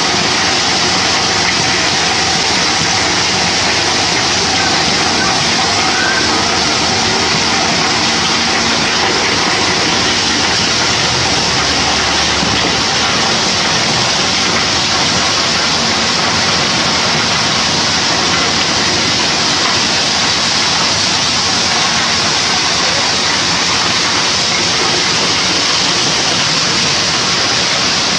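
Loose coal sliding and pouring off the raised tipper body of a dump semi-trailer in a steady, unbroken rush, with the truck's engine running underneath.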